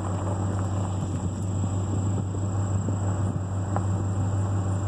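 Truck engine running at low speed, heard from inside the cab as a steady low hum, with a faint steady high-pitched whine over it.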